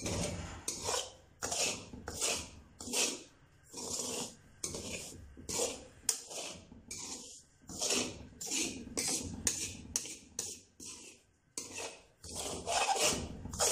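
Metal ladle scraping and stirring dry semolina in a steel kadhai, a rhythmic gritty rasp at about two strokes a second: semolina being dry-roasted over a low flame.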